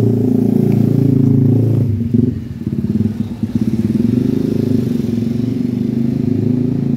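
A small motorcycle engine running close by, a steady loud low rumble with rapid even pulsing that dips briefly about two seconds in.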